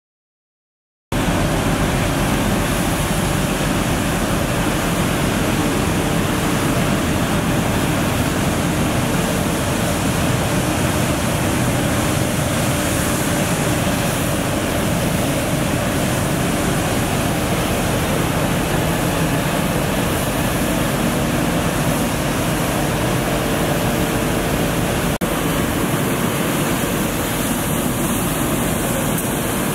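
Mercedes-Benz Arocs street sweeper truck at work: engine, turning brushes and water spray together make a steady, loud rushing noise that starts about a second in.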